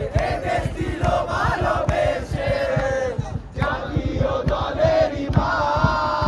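Football crowd chanting and singing together in the stands, many voices in unison, with a short break about halfway through.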